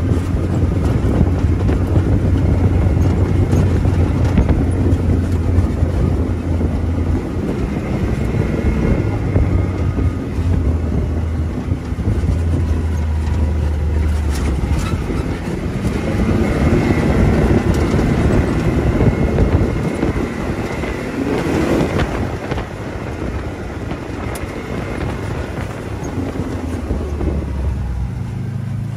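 Side-by-side UTV engine running as it drives a rough trail, with knocks and rattles from the machine bouncing over the ground. The engine note drops back about halfway through and climbs again near the end.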